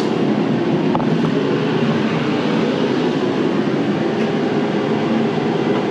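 A shop heater running with a steady low rushing hum, with a faint knock about a second in.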